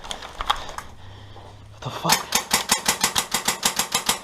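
Airsoft gun firing on full auto: a fast, even string of sharp cracks, about eight a second, starting about two seconds in after a few scattered clicks.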